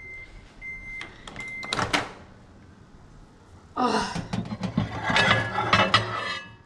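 Gorenje microwave oven beeping three times in a short high tone, with clicks as it is handled. From about four seconds in, a ceramic plate clatters and scrapes on the glass turntable as it is set in and lifted out.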